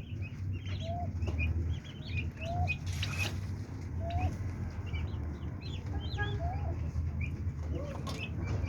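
Young turkey poults peeping: many short high chirps overlapping without pause, with a few lower rising calls among them. A brief rustle about three seconds in, over a steady low rumble.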